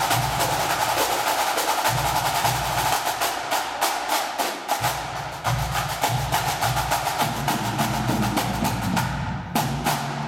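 Pipe band drum corps playing: rapid, crisp snare drum strokes and rolls over pulsing bass and tenor drum beats, thinning to a few sharp final strokes near the end.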